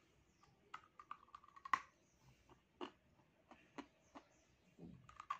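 Dry eating clay being chewed: faint, scattered sharp crunchy clicks at irregular intervals, the loudest a little under two seconds in.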